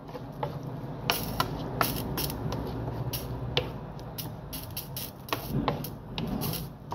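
Wooden spoon stirring diced onion in a frying pan, with irregular scrapes and taps of the spoon against the pan over a steady low hum.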